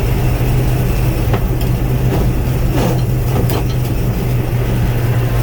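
Combine harvester running: a loud, steady engine drone with a strong low hum and a few faint knocks.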